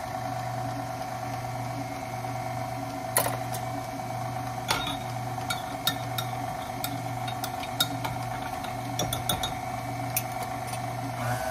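KitchenAid Artisan stand mixer motor starting up and running steadily with its wire whisk, beating flour into a cake batter in the stainless steel bowl. There is a steady hum, with occasional sharp clicks every second or so.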